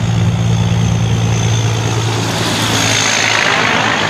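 Diesel engine of an American-style long-nose semi truck running steadily as it drives up, with a faint high whine over it. About three seconds in, a swell of tyre and air noise comes as the truck passes close, and then the engine drone drops away.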